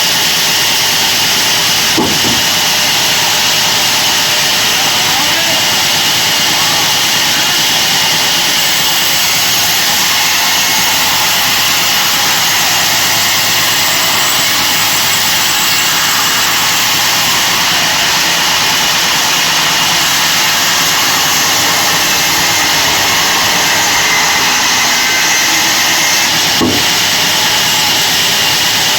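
Sawmill bandsaw running, a loud steady noise with a high, steady whine, broken by two brief knocks about two seconds in and near the end.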